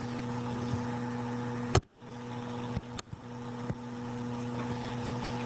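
Steady low electrical hum with a faint hiss, picked up by a computer microphone. Two sharp clicks break it, about two and three seconds in, and the sound drops out for a moment after the first.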